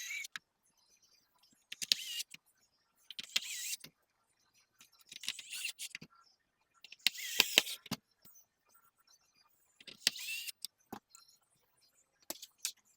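Electric screwdriver running in short bursts, about seven in all, with a whining pitch inside each burst, as the screws of a PlayStation 5 Slim console are driven back in. A few sharp clicks fall between the bursts.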